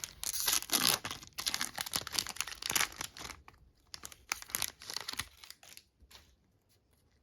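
A foil Pokémon card booster pack wrapper being torn open and crinkled: dense crinkling for the first three seconds, then scattered softer rustles and ticks that die away near the end.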